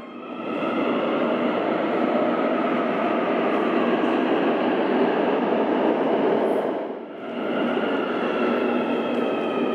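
Santiago Metro Line 6 electric train (Alstom Xtrapolis Modular) running: a steady rail rumble with a high motor whine that slowly falls in pitch. The sound dips briefly about seven seconds in.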